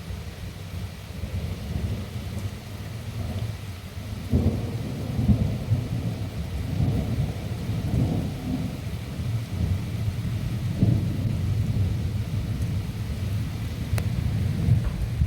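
Long rolling thunder rumbling for many seconds, swelling and easing several times, with rain falling steadily underneath.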